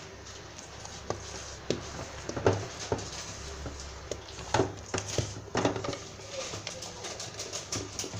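Spatula folding thick cake batter in a stainless-steel mixing bowl: soft scraping with irregular light knocks of the spatula against the bowl, over a low steady hum.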